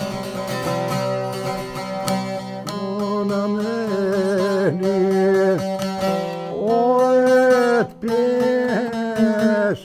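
A polusaz (half-size Bosnian long-necked saz) strummed steadily, its strings ringing throughout, with a man's voice joining in singing a folk song about three seconds in.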